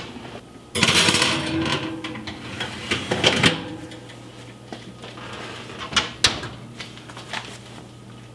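Oven door pulled open and a lidded enameled cast iron braiser set onto the metal oven rack and pushed in, with a rattle and a few clanks in the first few seconds; later the oven door shuts with two sharp knocks.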